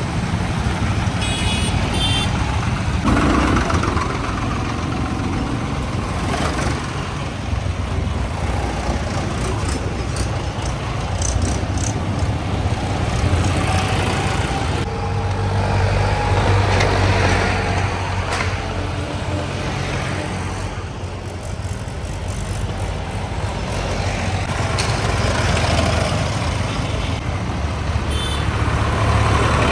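Tractor engines running steadily, with a few short beeps near the start and again near the end.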